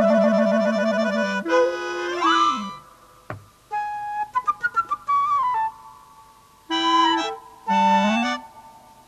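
Instrumental score music with reedy, woodwind-like notes: a held chord, then sliding pitches and bursts of short staccato notes. There is a quick downward swoop about three seconds in.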